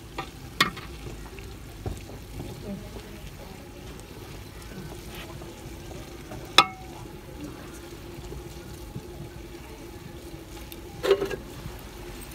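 Aluminium pot lid and metal dishes clanking against a rice cooking pot: a light knock near the start, a sharp ringing clank about six and a half seconds in, and a clatter near the end, over a faint steady sizzle from the cooking.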